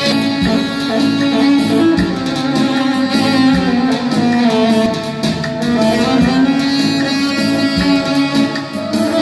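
Live instrumental music from a Yamaha arranger keyboard: a quick melody in a plucked-string voice over a few low drum hits, with no singing.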